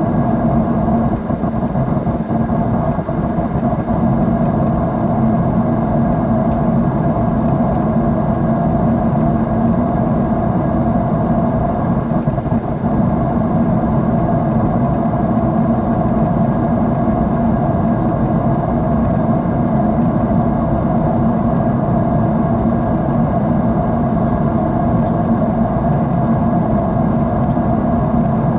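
Steady jet airliner engine and airflow drone heard inside the cabin at a window seat, a constant low rushing hum with no change in pitch.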